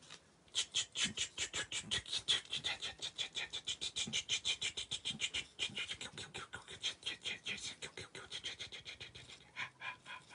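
A person making fast, rhythmic breathy mouth sounds, short hissing puffs about five or six a second.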